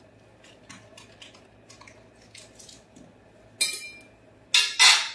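Kitchen utensils and cookware clicking and clinking lightly, then three short, louder rasping noises near the end.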